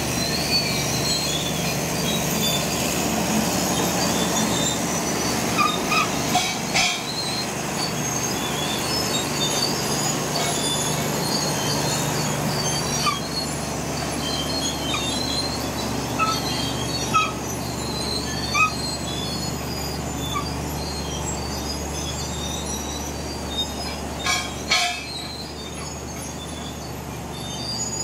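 BEML D155A crawler bulldozer with its six-cylinder Cummins KT1150 diesel running steadily under load as it pushes, while its steel tracks squeak and clank. A few sharper metallic knocks stand out, around a quarter of the way in and again near the end.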